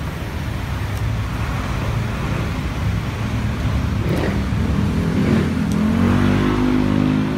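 A motor vehicle engine running over a steady low rumble, its hum swelling and growing louder about five seconds in.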